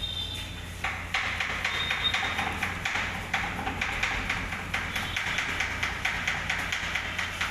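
Fast, even knocking or tapping, several sharp strikes a second, starting about a second in, over a steady low hum.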